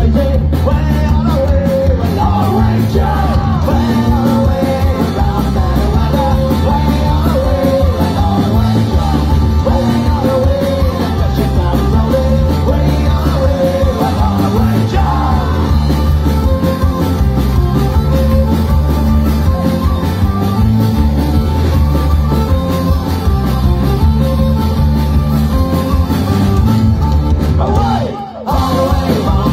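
Folk-punk band playing live: accordion, bass guitar and drums with a sung lead vocal. The music breaks off for a split second near the end.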